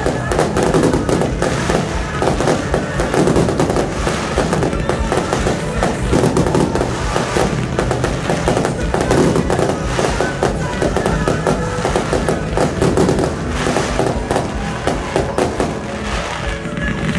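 Fireworks display: shells launching and bursting in quick succession with crackling, steady through the stretch, with music playing underneath.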